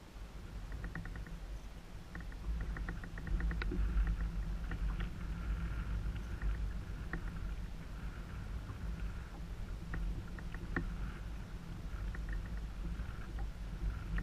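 Steady low hum and rumble aboard a fishing boat on open water, with runs of quick light ticking in the first few seconds and single ticks scattered after.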